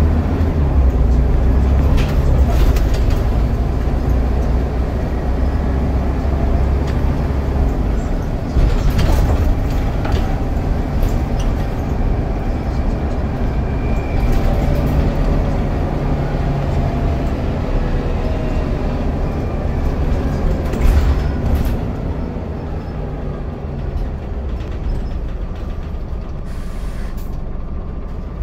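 Scania DC9 9.0-litre diesel of a Scania N94UD double-decker bus, heard from inside the lower deck as the bus is driven. The drone rises and falls in pitch, with a few sharp knocks and rattles, and it gets quieter over the last several seconds.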